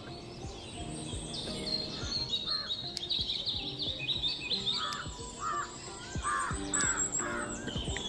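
Several birds chirping and calling together in a morning chorus of quick high notes, with a run of about five louder, lower calls in the second half.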